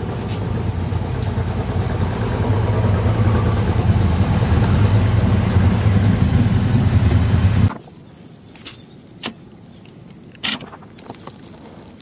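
A low engine rumble grows louder, then cuts off abruptly about eight seconds in. After it comes a steady high insect buzz with a few sharp clicks.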